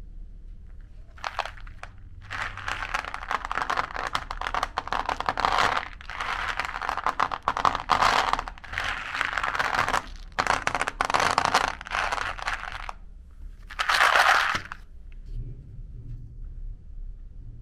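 Round chocolate-coated candies rattling and clattering against each other and a plastic tray as handfuls are scooped up and let fall, in several long stretches of dense clicking, with a short loud burst near the end.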